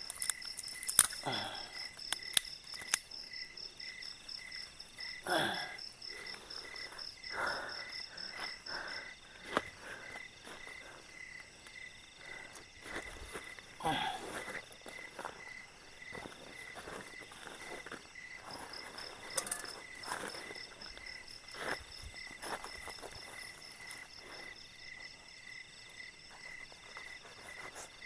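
Night insects chirping steadily. One repeats about twice a second, and another keeps up a fast high trill that stops for a while in the middle. Over them come sharp clicks, snaps and rustling as sticks and camping gear are handled, the loudest snaps in the first few seconds.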